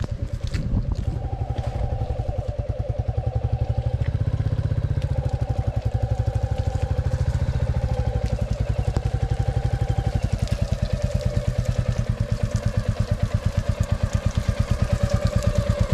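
Royal Enfield single-cylinder motorcycle engine running at low, steady revs, each firing stroke heard as an even pulse.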